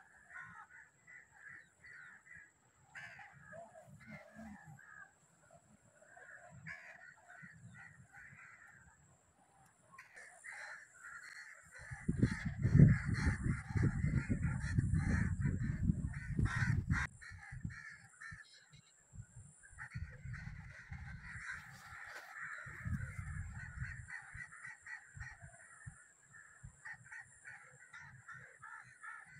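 A flock of crows cawing, many calls overlapping almost without pause. A loud, low rumble comes in for several seconds midway, with shorter ones later.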